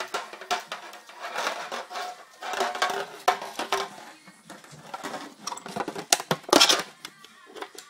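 Dog licking a foil tin, the thin metal crinkling and rattling under quick, irregular licks, loudest near the end.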